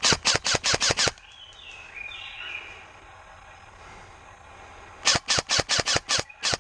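Airsoft gun firing two quick volleys of sharp shots, about six or seven shots a second, one right at the start and another about five seconds in.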